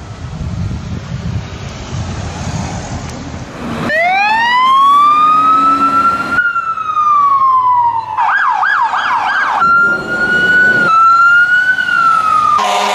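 Fire truck sirens. After about four seconds of engine and traffic rumble, a siren winds up and slowly falls. It switches abruptly to a fast yelp, then to a steadier wail, and a horn blast comes near the end.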